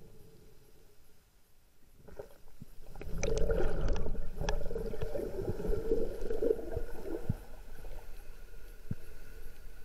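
Underwater water noise: from about three seconds in, gurgling and rushing water around the moving camera, loudest for about four seconds and then easing, with a few sharp clicks scattered through it.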